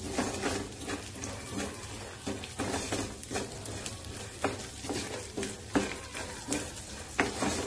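Chopped cashews, almonds and other nuts sizzling lightly in ghee in a nonstick frying pan, with a spatula stirring and scraping them around in repeated strokes, about one or two a second.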